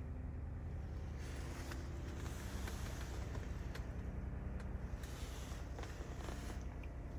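Steady low rumble inside a car's cabin, with two long stretches of hiss and a few faint clicks.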